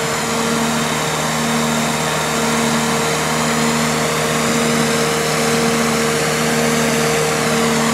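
Finn bark blower running, blowing material through its hose into a filter sock: a steady mechanical drone with a constant hum.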